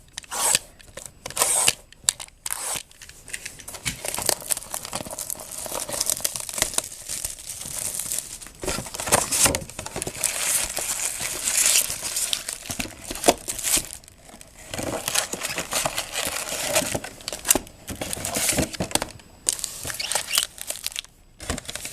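Plastic wrapping crinkling and tearing, with irregular crackles and handling noise, as a sealed box of baseball card packs is unwrapped and the wrapped packs are pulled out.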